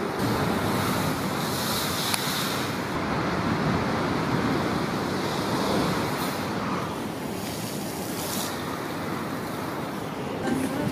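Heavy storm surf breaking against a sea wall: a continuous rushing noise that swells and eases, with wind blowing across the scene.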